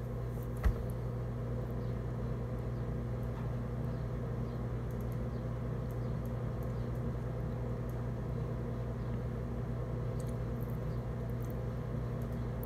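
Steady low hum with several even tones, from a running machine or appliance, with one sharp click about a second in.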